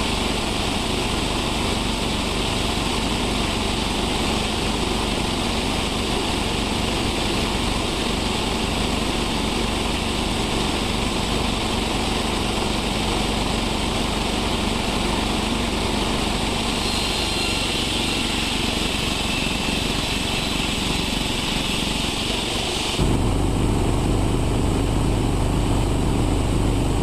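Sawmill machinery running steadily with a constant engine-like drone. About 23 seconds in it switches abruptly to a louder, deeper running sound.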